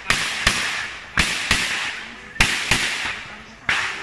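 Glock 17 Gen 4 9mm pistol firing seven shots, mostly in quick pairs (double taps), with about a second between pairs and a single shot near the end. Each shot is sharp and leaves a ringing tail.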